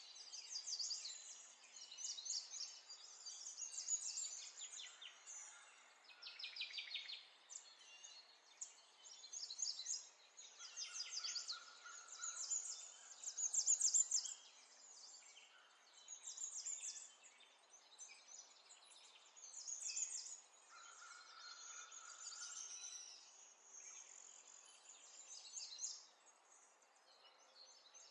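Faint birdsong: small birds chirping in quick trills and repeated phrases, with short pauses between them.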